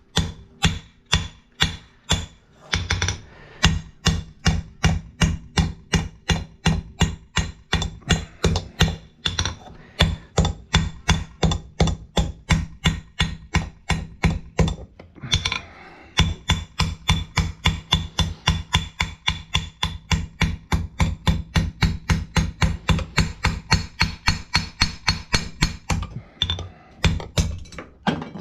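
Forging hammer striking hot steel on an anvil in a steady rhythm of about three blows a second, each blow leaving a bright ring, with short pauses about ten and fifteen seconds in.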